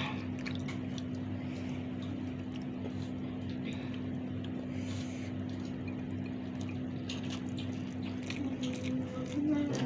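Steady low hum with faint clicks and smacks of eating by hand: fingers working rice and greens in a bowl, and chewing. Music fades in near the end.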